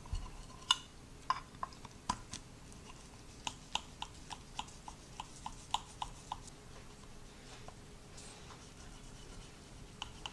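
A knife cutting baked cookie bars in a ceramic baking dish, the blade clicking and tapping against the dish in short, sharp knocks. About three a second in the middle, then quieter near the end.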